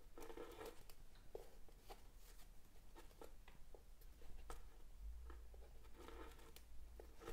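Faint rustling and scattered soft ticks of waxed polyester cord being handled and pulled through the fingers while macramé knots are tied.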